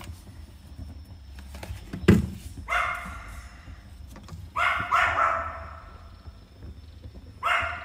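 A dog barking three times, a couple of seconds apart, each bark drawn out to under a second. A short knock comes shortly before the first bark.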